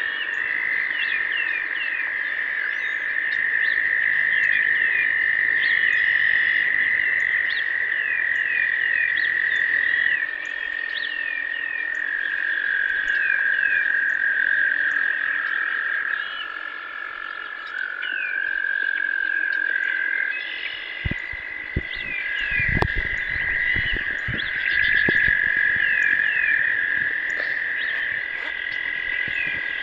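Pond frog chorus: many frogs calling together in a dense, steady high trill, with short falling chirps over it. Several low thumps come about two-thirds of the way through.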